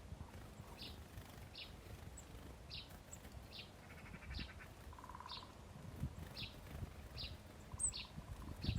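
Small birds chirping: a short high chirp repeated roughly every two-thirds of a second, with a brief buzzing trill about four and five seconds in. A soft thump near the end.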